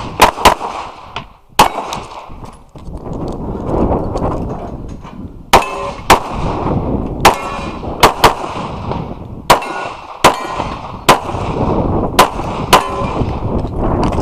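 A competition pistol firing about fourteen rapid shots during an IPSC stage run, some in quick pairs and some single, with gaps of a second or more between groups. A steady rushing noise sits between the shots.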